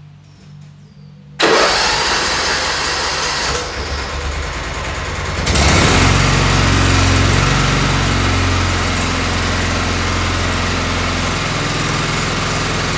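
Tractor engine cranked on its starter, loud from about a second and a half in; it catches about four seconds later and runs steadily.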